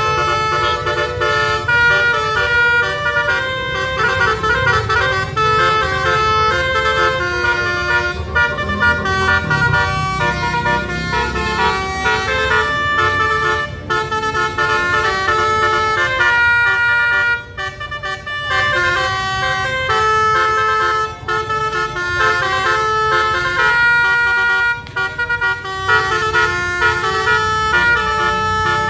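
Multi-trumpet musical air horn (telolet-style) playing a tune in held notes that step from pitch to pitch, several notes sounding together, over the low running of vehicle engines.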